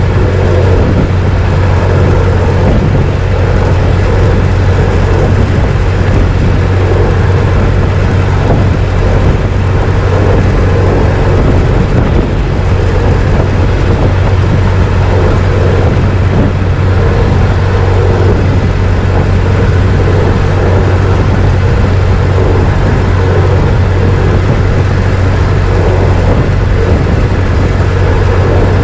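1926 Ford Model T's four-cylinder engine running steadily while the car is driven, a constant low drone that holds the same pace throughout.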